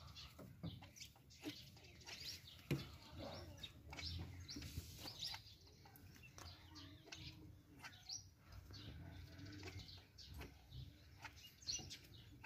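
Faint, scattered bird chirps with a few light clicks and knocks spread through.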